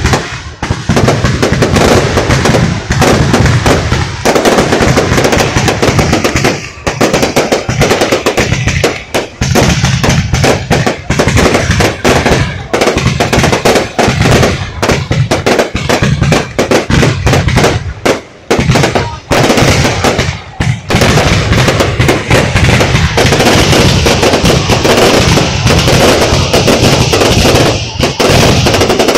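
Fireworks display: aerial shells bursting overhead in rapid, near-continuous volleys of loud bangs and crackling, with a few brief lulls.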